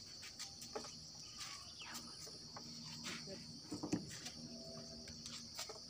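Faint, steady high-pitched insect chirring, with soft rubbing strokes and light knocks as a whiteboard is wiped clean with a handheld eraser.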